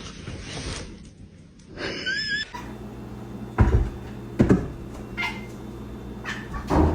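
A domestic cat meowing briefly, a short wavering call about two seconds in, followed by a few soft knocks over a low steady hum.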